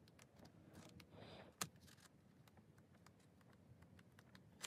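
Near silence with a few faint scattered clicks and taps, and one sharper click about one and a half seconds in.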